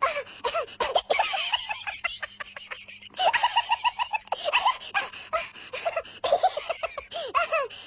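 Cartoon evil laugh: a high-pitched, rapid cackle in bursts of short rising-and-falling notes, several a second, with brief breaks between the bursts.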